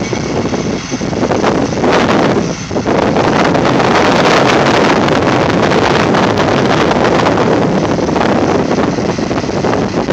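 Gleaner combine harvester running steadily while harvesting wheat, with wind buffeting the microphone.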